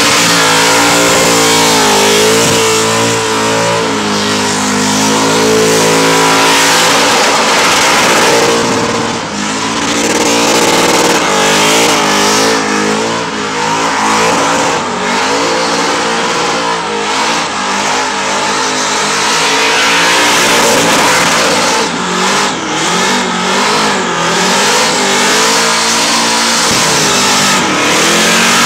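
Supercharged burnout car's engine revving hard through a long burnout. The revs are held high with the pitch wavering up and down as the throttle is worked, dropping briefly a few times.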